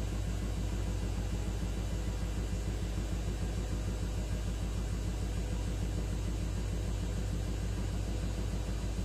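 LG washing machine in its spin cycle, running with a steady, heavy rumble and a fast, even pulsing: the excessive spin noise that is the fault being shown.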